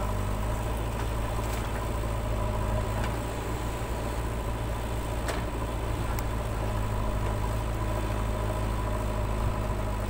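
JCB 3DX backhoe loader's diesel engine running steadily while the backhoe dumps soil and swings back to dig, with a few faint knocks.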